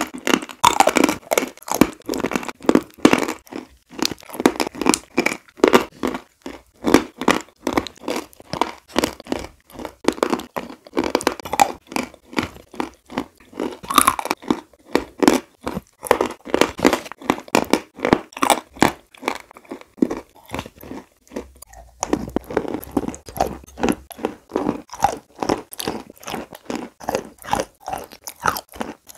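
Close-miked chewing and crunching of chalk eaten as a thick paste by the spoonful: a dense, continuous run of crunchy clicks and wet mouth sounds, several a second.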